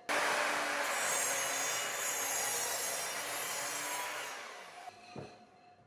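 Sliding compound miter saw running and crosscutting a wooden 2x6 board. It starts abruptly, runs loud for about four seconds, then dies away as the blade spins down.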